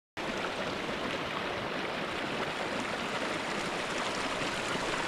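Small alpine stream running over rocks: a steady rush and trickle of water that cuts in suddenly just after the start and cuts off abruptly at the end.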